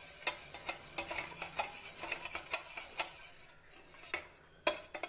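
A metal spoon stirs sugar into water in a stainless steel bowl, clinking against the bowl about three times a second. The clinks thin out toward the end, ending with a couple of louder taps.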